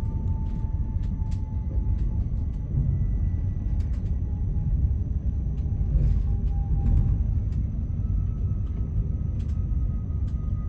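Inside a moving electric train: a steady low rumble of the running gear on the rails, with a faint whine from the traction motors sliding slowly up and down in pitch and occasional light clicks and rattles.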